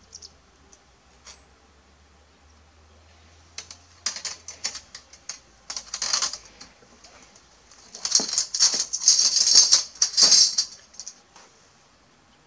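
Steel bandsaw blade rattling and clinking in gloved hands as it is twisted and folded into coils. The rattling comes in bursts: about four seconds in, around six seconds, and a longer, louder stretch from about eight to ten and a half seconds.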